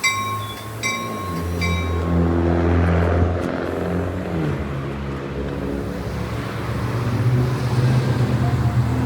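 Commuter train's diesel locomotive engine revving up and then running steadily under power, with the locomotive bell ringing for the first couple of seconds before it stops.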